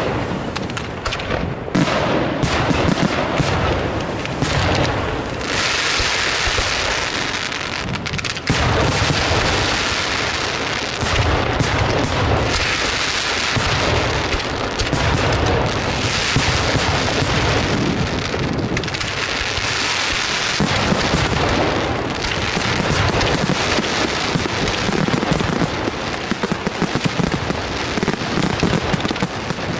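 Aerial firework shells bursting in a dense, continuous barrage: repeated booms over rapid, unbroken crackling.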